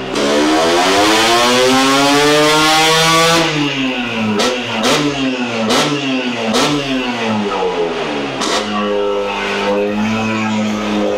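Vespa PX with a Quattrini 244cc two-stroke engine and expansion-chamber exhaust on a rolling-road dyno, making a full-throttle pull: the engine note climbs steadily for about three and a half seconds. Then the throttle shuts and the revs drop and rise in a few short blips with several sharp cracks, before settling to a steadier, lower running note near the end.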